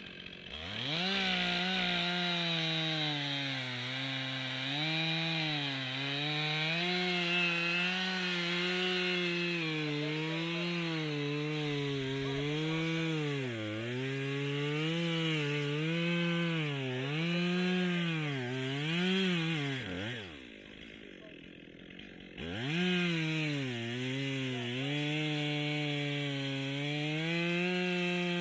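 Two-stroke chainsaw revving up and cutting a log, its pitch sagging and recovering again and again as the chain loads up in the wood. About twenty seconds in it drops back to idle for a couple of seconds, then revs up and cuts again.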